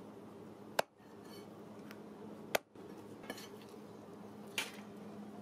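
Cleaver chopping through goat head on a wooden log block: two sharp chops about two seconds apart, then a softer knock near the end.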